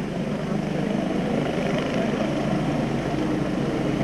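Helicopter engine and rotor running steadily, with a fast even chop under the engine noise.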